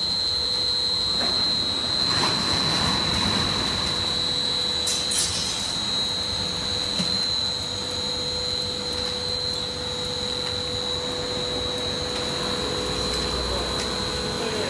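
PVC blown-film extrusion machine running: a steady mechanical drone of motors and blower air, with a constant high-pitched whine over it. A few light clicks come about five seconds in.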